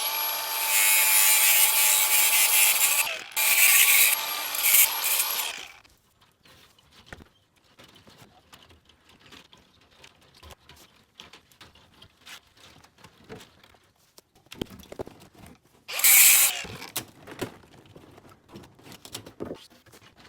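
DeWalt 735X thickness planer running loud, its motor and chip-ejection fan whining steadily over the rush of the three-knife cutterhead planing a board, with a short dip about three seconds in. It stops about six seconds in, leaving faint clicks and knocks of handling. A short loud rush of noise comes around sixteen seconds.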